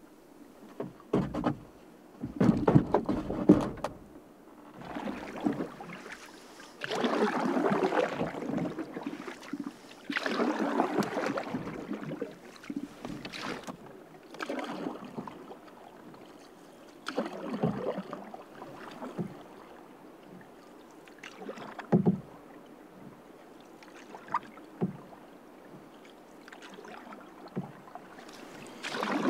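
Canoe paddling: paddle strokes swishing and splashing through the water every two to three seconds, with a few sharp knocks in between.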